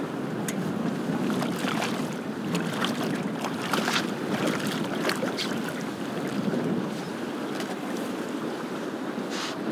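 Wind buffeting the microphone over water lapping at the boat, with several short splashes in the middle as a small cod thrashes at the surface while it is brought in on the line.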